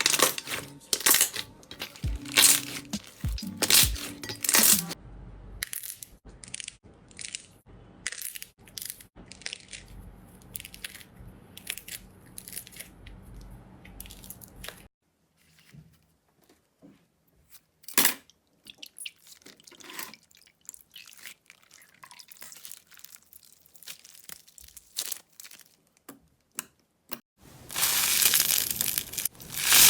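Slime being pressed, poked and pulled, giving a run of crackling clicks and pops. The pops come thick at first, thin out to scattered snaps for a long stretch, and turn into dense loud crunching in the last two seconds.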